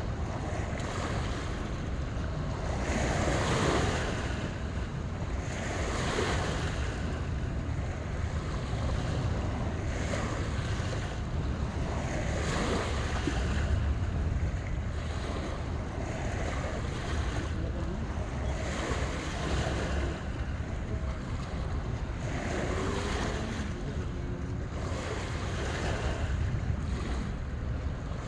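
Small waves washing onto a sandy, rocky shore, a soft swell of hiss every few seconds, over a steady low rumble of wind on the microphone.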